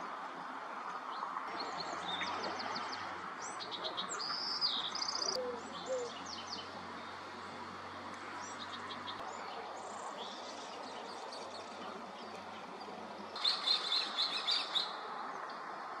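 Several wild birds chirping and singing: short trills and whistled notes, with a louder run of quick chirps about thirteen seconds in, over a steady background hiss and faint low hum.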